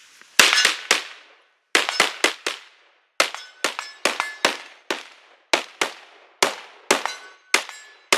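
Rapid semi-automatic rifle fire, about twenty shots in quick groups of two or three. Several shots are followed by a faint metallic ring, as of steel targets being hit.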